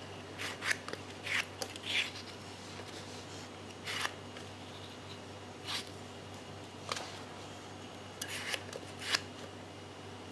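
Tomatoes being cut into the salad: about ten short, sharp cutting sounds at irregular intervals.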